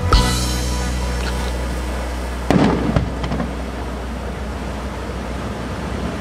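Aerial fireworks bursting: a sudden boom about two and a half seconds in that rumbles away over the following seconds.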